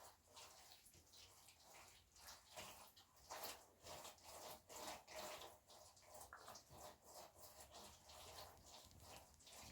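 Faint, irregular splashing and sloshing of water with wet soil, as mud is mixed and worked by hand.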